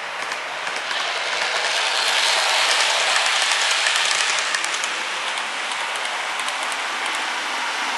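Model train running past on its track: a rushing wheel noise that swells and then fades as it goes by, with light clicks of the wheels over the rail joints, over a steady hiss.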